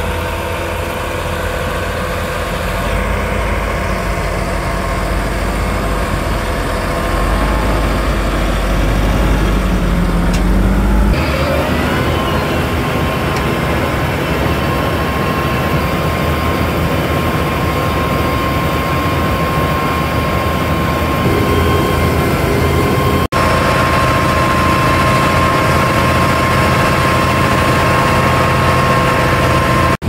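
A John Deere track tractor's diesel engine and a Spudnik potato harvester running steadily. A steady high whine joins the low engine hum about a third of the way through.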